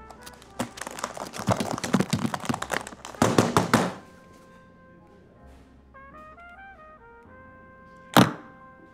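Rustling and knocking for the first few seconds, then quiet background music with a short melodic phrase, ended by one loud thunk near the end as a leather briefcase is set down hard on a counter.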